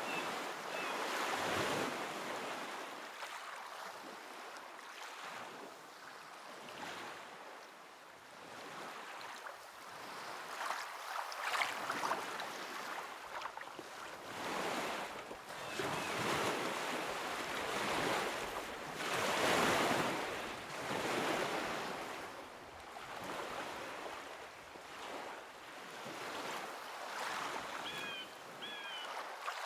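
Waves washing onto a shore, the surf swelling and ebbing every few seconds. Two short high chirps come near the end.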